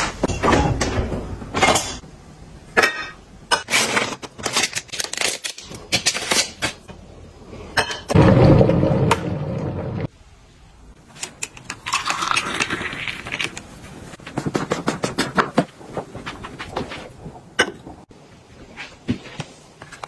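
Household handling sounds: many light clinks and knocks of glassware and dishes, with water pouring steadily for about two seconds near the middle and stopping abruptly.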